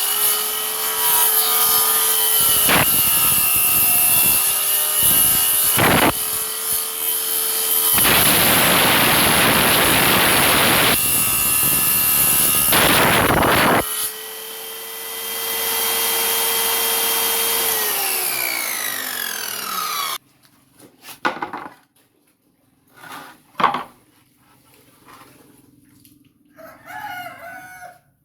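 Homemade table saw built from a circular saw with a 7-inch, 24-tooth blade, its motor running with a steady whine while it makes several cuts through wood, the longest lasting about three seconds. About two-thirds of the way through it is switched off and winds down with falling pitch, followed by a few light knocks.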